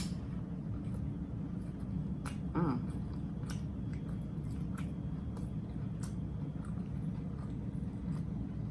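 Close-up chewing and wet mouth clicks of someone eating a chopped grinder sandwich, over a steady low hum. A short pitched sound rises and falls about two and a half seconds in.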